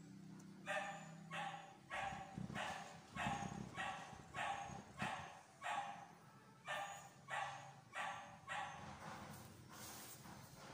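A dog barking over and over in a steady run, about three barks every two seconds, with a short pause a little past the middle.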